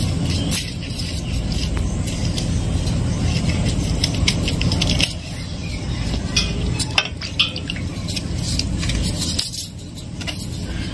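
Light clicks and scraping of bitter gourd slices being cored by hand, with bangles clinking now and then, over a steady low rumble.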